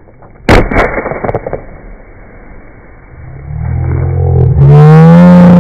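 A single loud bang about half a second in, followed by a few lighter knocks, as a soda bottle is slammed down on the road. Then a car engine grows louder and revs up, rising in pitch, and is the loudest sound by the end.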